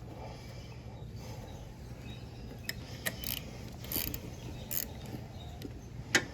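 Hand tool loosening the bolt of a side-post car battery terminal: scattered light metallic clicks and ticks as the bolt is worked loose.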